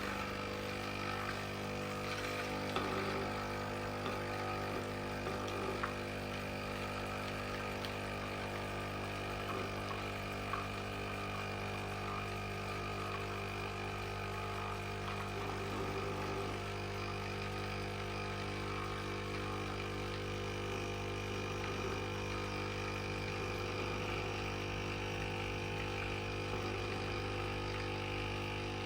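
Grey Easy capsule coffee machine's pump running steadily as it pushes hot water through a pierced capsule, a steady hum with a few small knocks in the first ten seconds.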